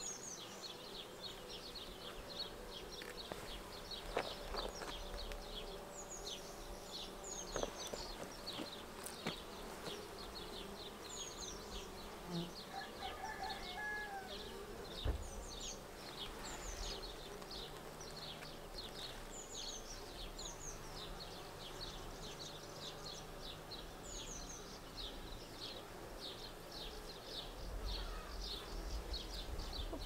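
Honeybees buzzing around an open hive whose frames are being lifted out: a steady hum, with a few light knocks.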